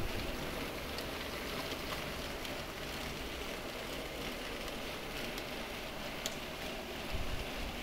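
A 00 gauge model freight train rolling along the track: a steady running hiss with a few faint clicks from the wheels, and a low bump near the end.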